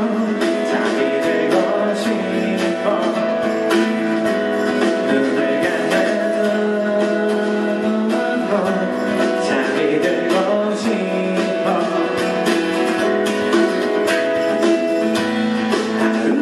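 A man singing with his own strummed acoustic guitar in a live solo acoustic performance, the guitar strummed steadily.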